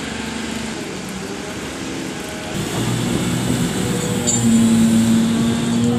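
Forklift and truck-mounted crane engines running steadily, the engine note getting louder and higher from about two and a half seconds in as the heavy load is pushed into the container.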